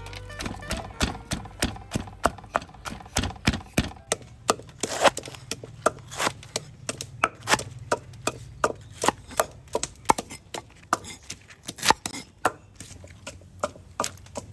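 Knife chopping cabbage on a thick wooden chopping board: sharp knocks repeating about two or three times a second. The knocks in the first few seconds are heavier and deeper.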